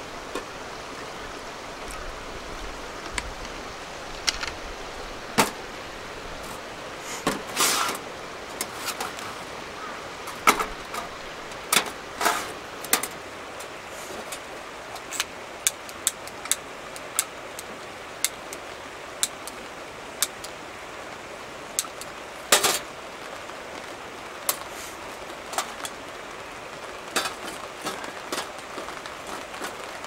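Wood campfire crackling: a steady hiss broken by irregular sharp pops and snaps.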